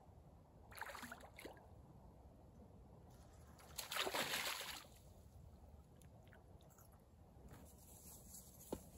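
A hooked fish splashing at the water's surface while being played on a rod. There is a short splash about a second in and a louder splash lasting about a second midway, then a single sharp click near the end.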